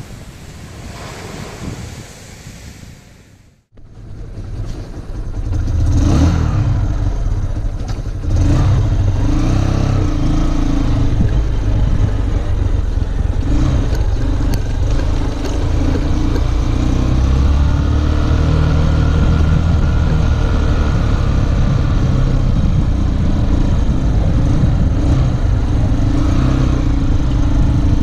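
Wind and surf noise that cuts off suddenly about three and a half seconds in. Then a motorcycle engine running under way, loud and low, its pitch rising and falling as it speeds up and slows.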